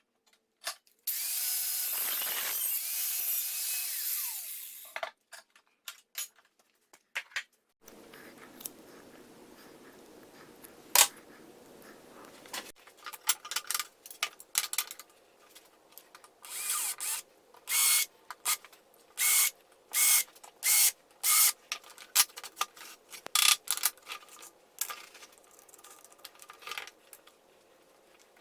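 Workshop sounds of cutting a length of aluminium T-track to size: a power tool cutting for about four seconds, a machine running faintly for a few seconds, then a long run of short scraping strokes, about one a second for a while.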